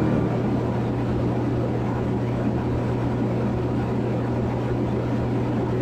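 Steady drone of a Van's RV-10's piston engine and propeller in flight, heard inside the cockpit: a constant low hum with an even rushing noise above it.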